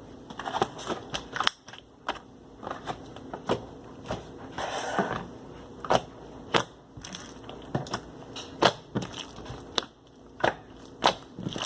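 A large clear slime being squished and poked by hand, making sharp pops and clicks at irregular intervals, with longer squelches about half a second in and near five seconds.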